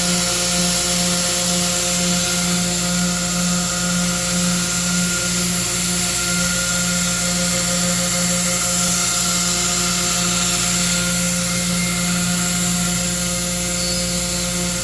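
Two CNC router spindles running together with a steady, unbroken machine hum and hiss.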